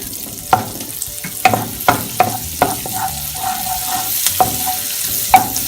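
Chopped garlic sizzling in melted butter in a pan as it is sautéed and stirred, with the stirring utensil knocking against the pan at irregular moments.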